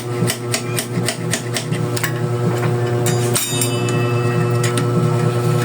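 Quick metallic clicking, about four clicks a second for the first couple of seconds, then a single louder metal clink that rings briefly, from tools and parts being handled while fitting a bicycle's front brake. A steady hum runs underneath.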